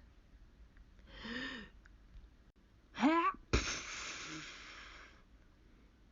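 A woman's acted sneeze. A breathy rising intake about a second in, then a rising 'ahh' just before the middle, then a sharp 'choo' about three and a half seconds in, with a long breathy trail that fades.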